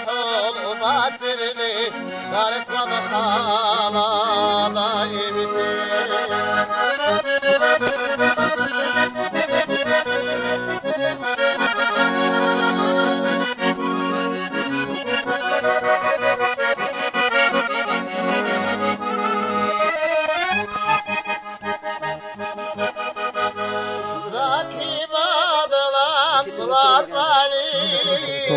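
Accordion playing a Dargin folk-song melody in an instrumental passage, with fast ornamented runs.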